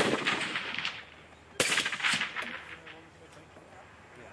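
Two rifle shots, about a second and a half apart. The first comes right at the start, and each trails off in a short echo.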